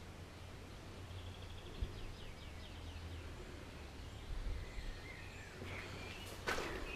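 Quiet outdoor ambience: a steady low rumble with birds chirping in short quick series. Near the end come a few footsteps on concrete as the person starts walking.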